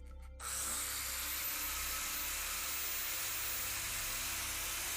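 A power cutting tool starts about half a second in and runs steadily with an even hiss, cutting a steel piano hinge to length.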